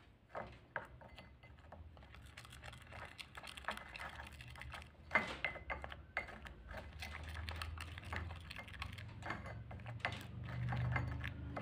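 Metal spoon stirring and scraping a thick, sticky paste of liquorice-root (mulethi) powder, turmeric and milk in a glass bowl, with small irregular clicks of the spoon against the glass.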